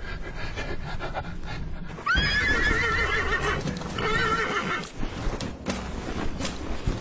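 Horse whinnying: a long quavering neigh that starts about two seconds in with a sharp rise in pitch, followed by a shorter second neigh, with scattered hoof knocks around it.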